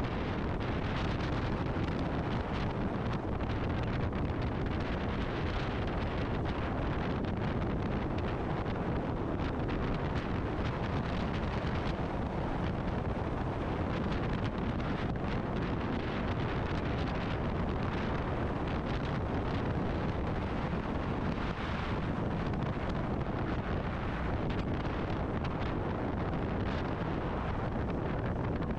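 Steady wind rushing over the microphone of a motorcycle under way, with engine and road noise underneath.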